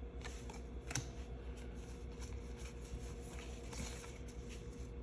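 Pokémon trading cards being handled and slid against one another while a freshly opened booster pack is sorted: soft scraping and light ticks over a steady low hum.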